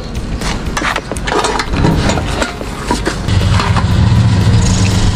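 A petrol-station fuel dispenser's pump motor starts about three seconds in and runs with a steady low hum as petrol is pumped into a motorcycle's tank. Before that there are scattered clicks and rustling.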